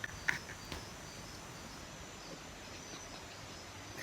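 Quiet lull with faint steady background noise and a thin high-pitched whine, and a couple of soft clicks in the first half-second.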